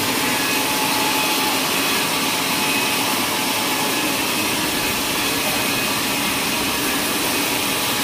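Sawmill machinery running with a steady, even mechanical noise and a faint steady whine, no single cut or knock standing out.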